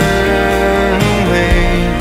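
Background music: a song with held notes and a steady beat about twice a second, between sung lines.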